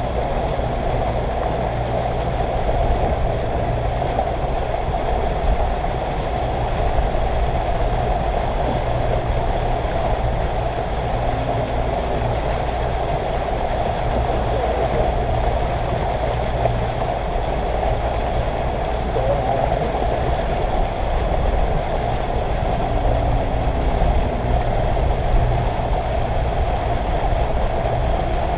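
Boat motor running steadily at low speed, a constant low hum with no change in pitch.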